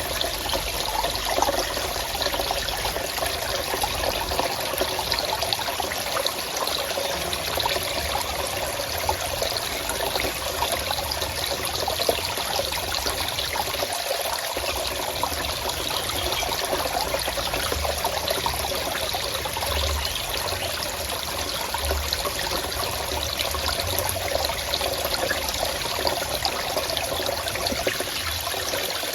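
Forest stream flowing and trickling, a steady, even rush of running water.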